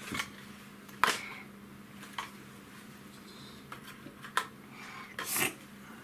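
A handful of small, separate clicks and knocks of objects being handled, the sharpest about a second in and a longer rattle near the end, over a faint steady hum.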